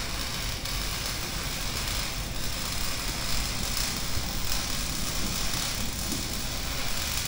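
Steady hiss of heavy rain on the shop roof, with a few faint clicks from a ratchet wrench working a set screw on a PTO shaft yoke.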